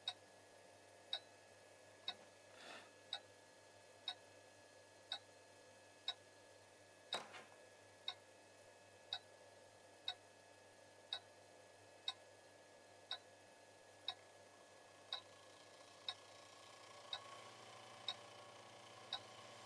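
A clock ticking steadily once a second, sharp and even, over a faint steady hum. There is a brief soft rustle near the third second and a single knock about seven seconds in.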